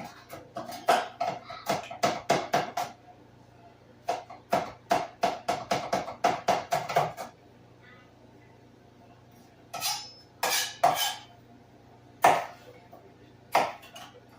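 Knife chopping vegetables into small dice. Two runs of quick strokes, about four a second, each with a slight ring, then a few single louder knocks near the end.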